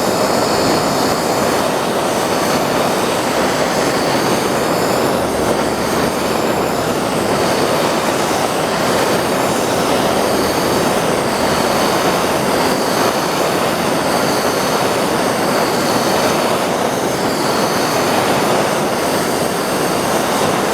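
Gas torch burning steadily with an even hiss, heating the steel fuel tank's bottom so the work gets hot enough to melt the solder for the drain bung washer.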